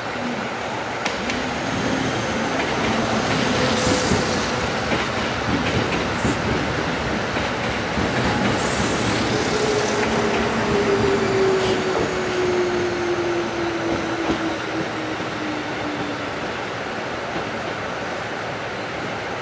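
Kintetsu 1400-series electric train pulling into a station and braking: a running rumble with brief high wheel squeals on the curve, and a whine that falls slowly in pitch as it slows.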